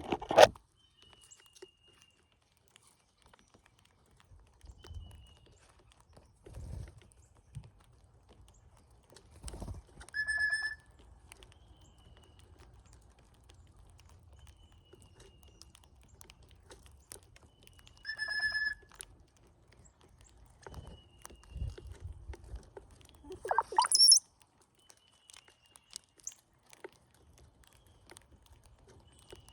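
Brown-headed cowbirds: a gurgling song that climbs into a thin, high whistle near the end, two shorter calls in the middle, and faint short whistles every few seconds, with a few soft low thumps in between.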